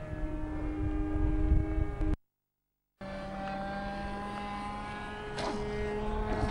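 Radio-controlled model aircraft engine running steadily with a droning pitch, over a low wind rumble on the microphone. The sound drops out completely for a moment about two seconds in, then the engine drone resumes.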